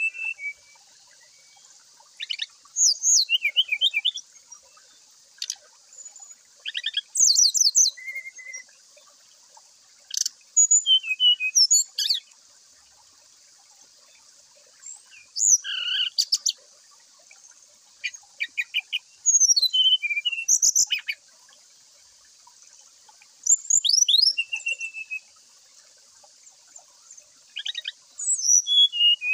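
Brown-chested jungle flycatcher (sikatan rimba dada coklat) singing in short bursts of high, fast twittering and whistled sliding notes, with pauses of a few seconds between phrases.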